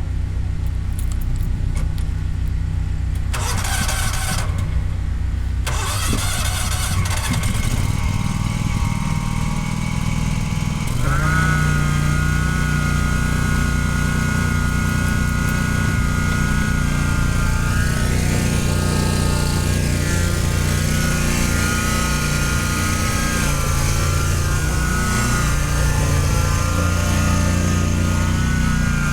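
John Deere Z-Track 757 zero-turn mower's 25 horsepower V-twin engine running; about 11 seconds in it speeds up and a steady whine joins it. The mower has freshly replaced deck bearings and belts.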